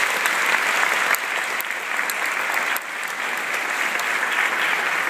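Audience applauding: a steady, dense round of clapping from a crowd.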